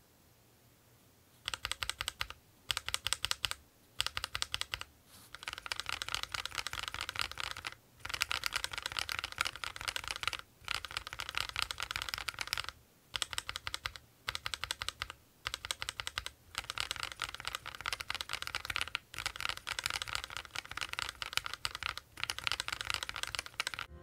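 Typing on a mechanical keyboard fitted with Akko Sakura linear switches: runs of quick keystroke clacks broken by short pauses, beginning after about a second and a half of near silence.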